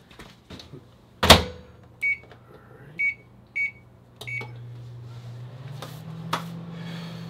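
Microwave oven: a loud knock as its door shuts, four short keypad beeps, then the oven starts running with a steady low hum that gains a slightly higher second note a moment later. A single click comes near the end.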